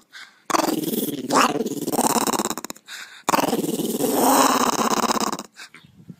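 A small fluffy white dog growling in two long, rasping stretches of about two seconds each, with a short break between.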